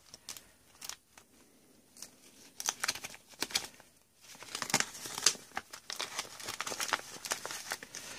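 A clear plastic zip-top bag crinkling as a hand handles it and slides it about, in irregular crackles that are sparse at first and grow busier from about two and a half seconds in.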